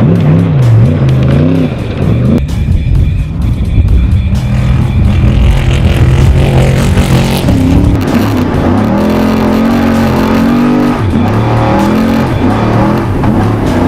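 Unlimited trophy truck's race engine revving hard, its pitch rising and falling repeatedly as it accelerates and lifts over rough desert terrain.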